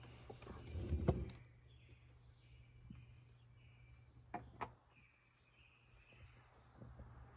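New oil filter being handled and spun by hand onto its threaded mount under the engine. A brief rustle comes near the start and two light clicks about four and a half seconds in.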